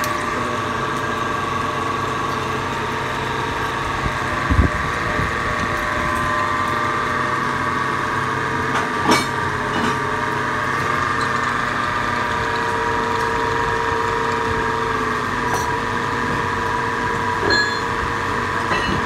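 Metal lathe running steadily with a constant whine while a metal part is turned, with a couple of sharp clicks, about four and nine seconds in.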